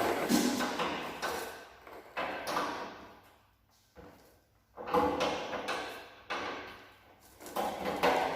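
A run of sudden metallic scrapes and clunks from hand tools and parts being handled under a vehicle, about five of them, each dying away within a second, with a brief silence a little before the middle.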